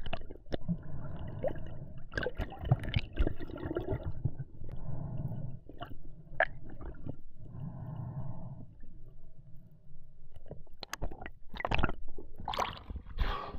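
Underwater water noise: gurgling and sloshing around the camera in uneven swells, with scattered sharp clicks.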